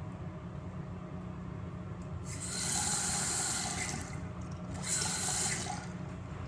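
Crane Galaxy toilet flushing: a loud rush of water starting about two seconds in, then a second, shorter rush about five seconds in, over a steady low hum.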